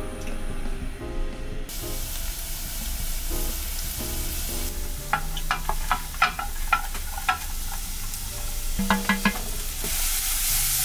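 Minced garlic sizzling in hot oil in a frying pan, with chopped onion and chili pepper tipped in and stirred. The sizzle starts about two seconds in and gets louder near the end, with light background music underneath.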